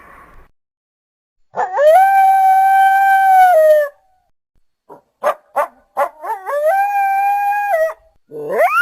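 Coyote howls, lowered in pitch, as a monster sound effect: one long steady howl with a falling end, then a few short yips running into a second howl, and a third rising howl beginning near the end.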